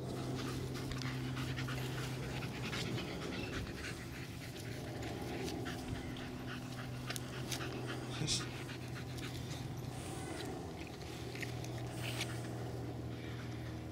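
Staffordshire bull terriers panting steadily, over a steady low hum. The dogs are hot and cooling down after exercise.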